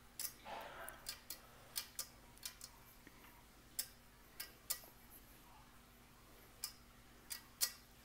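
Bare fingers mixing spice powders into a paste in a stainless steel pan: scattered light clicks and taps as fingertips and nails knock against the steel, a dozen or so at irregular intervals.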